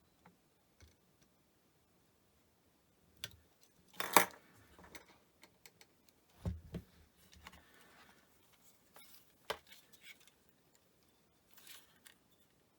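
Sporadic clicks and taps of small hand tools working on a circuit board, the sharpest click about four seconds in and a duller knock a couple of seconds later.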